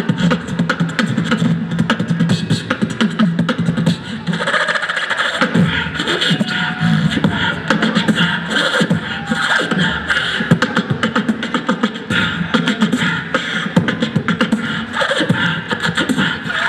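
A beatbox crew performing live through a PA: fast vocal percussion of kick, snare and hi-hat sounds from several mouths, with a low held bass note under the beat for about the first four seconds before the pattern changes.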